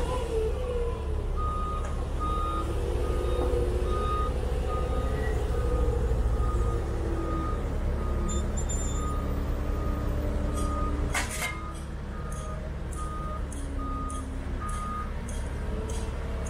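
Reversing alarm of a Liebherr 509 telescopic wheel loader beeping steadily on one pitch, a little under twice a second, over its diesel engine running as it manoeuvres. A single sharp clunk about two thirds of the way through.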